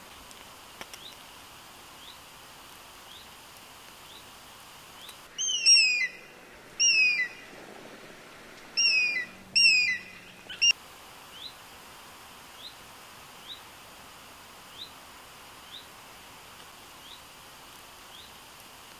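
A bird calling loudly in about five bursts of falling, slurred notes between about five and eleven seconds in. Faint short rising chirps repeat about once a second before and after.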